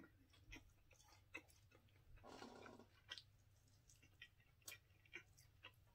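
Faint chewing and small wet mouth clicks of someone eating meat off a chicken wing bone, with a brief soft breathy rush a little past two seconds in.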